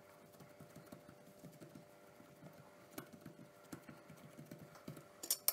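Hands patting and pressing a ball of soft bun dough flat on a countertop: a run of soft, quick pats and taps. A sharp click about halfway and a brighter clink near the end.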